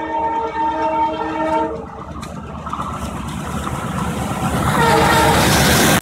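ALCO diesel locomotive's multi-tone air horn sounding a long blast that stops a little under two seconds in. After it, the rumble of the locomotive's engine and the train's wheels grows steadily louder as it approaches, and is loudest near the end as the locomotive reaches the microphone.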